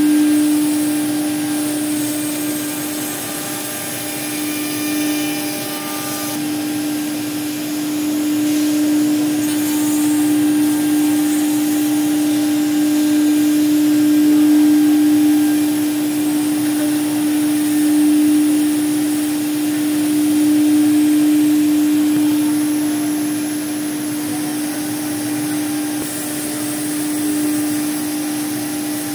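Blue Elephant 2131 ATC CNC router spindle running with a constant mid-pitched whine while the bit routs a letter groove into the board, over a steady rushing hiss of cutting.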